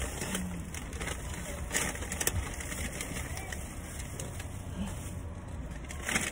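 Car engine idling with a steady low hum, under scattered rustles and clicks of a takeout bag being rummaged through, with a few sharper knocks about two seconds in and near the end.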